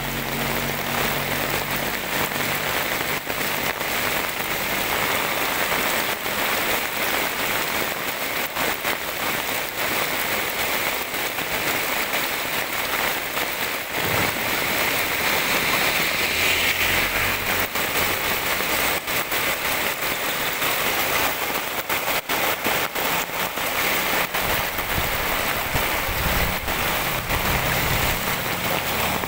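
Heavy typhoon rain pouring onto an asphalt road, a steady dense hiss with many close drop ticks, with runoff water rushing and bubbling up along the roadside gutter. A low rumble joins in near the end.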